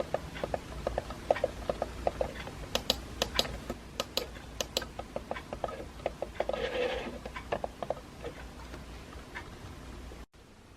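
Typing on a compact Bluetooth keyboard: irregular key clicks in quick runs, with a short scuffing sound about two-thirds of the way through.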